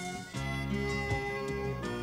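Instrumental background music: held melody notes over a steady bass line, with a new phrase starting about a third of a second in.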